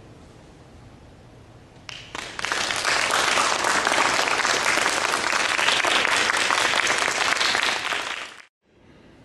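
Large crowd applauding, starting about two seconds in, holding dense and loud, then cutting off abruptly near the end.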